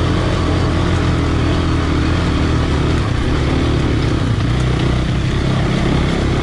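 Motorcycle engines running steadily while riding slowly over a rocky dirt trail, heard from the following bike, with a steady hiss of tyre and wind noise over the engine.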